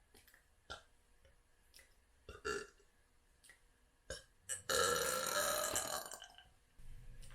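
A woman burping: one long, loud burp about halfway through, lasting about a second and a half, with a few small clicks before it.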